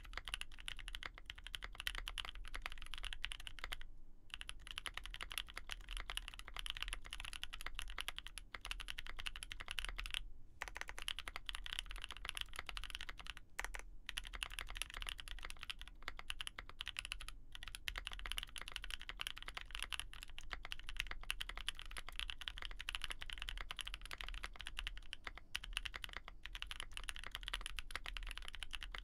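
Continuous typing on a Mode65 aluminium stack-mounted custom mechanical keyboard with lubed Gazzew Boba U4T tactile switches, a POM plate and GMK keycaps: a dense stream of keystroke clacks with a few brief pauses.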